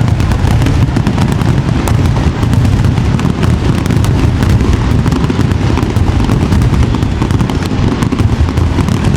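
Aerial fireworks in a dense, unbroken barrage: rapid overlapping bursts and crackle over a continuous low rumble of booms.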